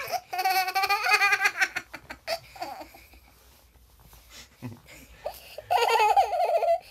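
Children laughing and squealing in high, wavering bursts: a long burst at the start, a quieter stretch, then another loud burst near the end.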